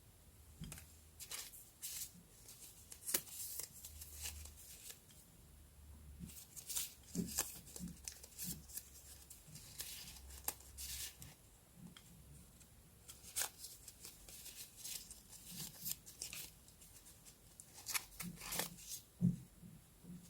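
Paper and sticker materials being handled for journal decorating: irregular soft rustles, slides and crisp taps, with a few louder ones scattered through.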